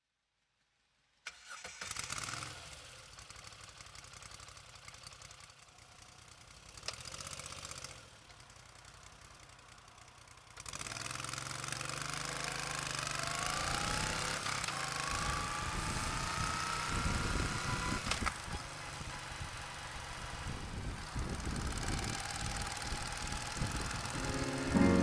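Moto Guzzi V9 Roamer's air-cooled transverse V-twin running quietly at first. About eleven seconds in it gets much louder, and the revs climb steadily as the motorcycle accelerates away.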